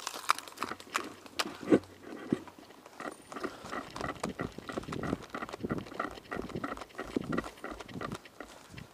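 Footsteps crunching on gritty concrete and rubble, with the rattle of gear and a carried airsoft rifle, as a player moves on foot; the steps come quicker and more evenly from a few seconds in.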